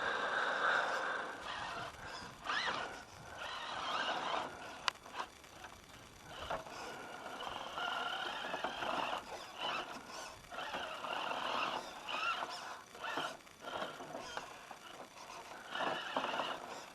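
Hobbywing Fusion Pro 2300kv brushless motor and drivetrain of an RC crawler whining in irregular bursts as the throttle is worked on and off, with scattered clicks and knocks.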